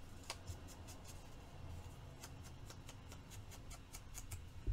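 Paper and craft supplies being handled on a table: faint, irregular light clicks and ticks, a few per second, over a low steady hum.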